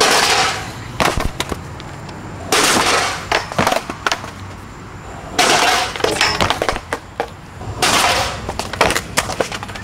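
Skateboard on concrete: a string of sharp clacks and knocks from the board, with four short bursts of rough, hissing noise about every two and a half seconds.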